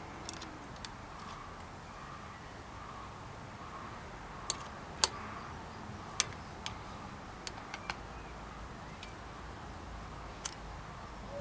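Sharp, irregular metallic clicks of a steel Allen key working on a bicycle's Shimano Deore front derailleur while it is being adjusted. About a dozen scattered ticks, the loudest about halfway through.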